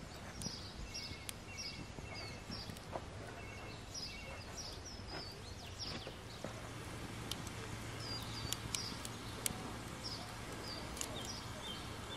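Wood campfire crackling with a few sharp pops while small birds chirp repeatedly in the background. A low steady hum comes in about halfway through.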